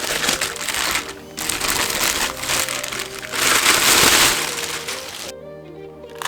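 Background music over loud crinkling and rustling of plastic packaging as statue pieces are unwrapped. There is a short break about a second in, and the crinkling stops about five seconds in, leaving only the music.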